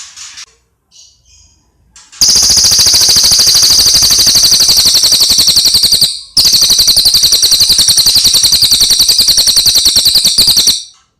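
Cililin songbird singing: a few faint high chirps, then two long, very loud rapid trills of evenly repeated high notes, each about four seconds, with a brief break between them.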